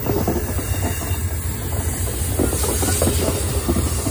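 Amtrak Amfleet I passenger coaches rolling past close by as the train departs: a steady low rumble of steel wheels on rail, with quick irregular clatters and a hiss over it.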